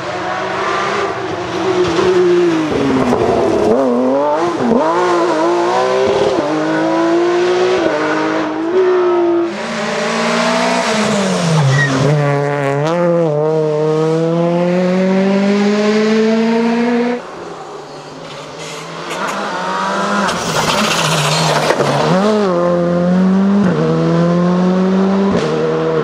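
Rally car engines revving hard at close range, a Peugeot 208 among them, climbing and dropping in pitch through gear changes and lift-offs. There are bursts of tyre noise on loose gravel. The sound drops suddenly about seventeen seconds in, then another car's revs build again.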